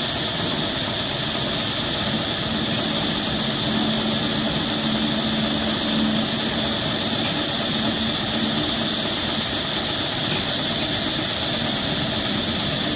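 A steady, unchanging drone with a constant high-pitched hum over a lower hum.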